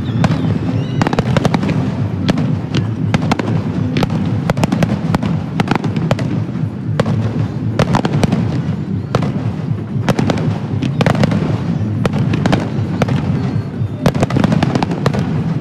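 Aerial fireworks display: shells bursting in quick succession, a dense run of bangs and crackles several times a second over a steady low rumble.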